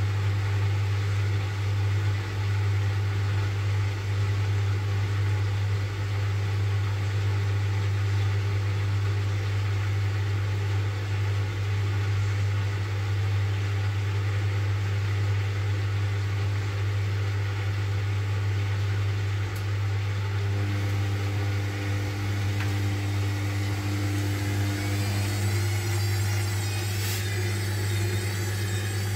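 Hotpoint washing machine's drain pump humming steadily as it pumps out foam-laden water: the machine is in suds lock, clearing excess suds. A fainter higher tone joins near the end.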